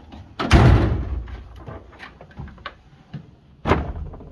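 A steel tool chest drawer rolling shut on its slides with a bang about half a second in, the tools inside rattling, then another drawer pulled open with a sharp clack near the end.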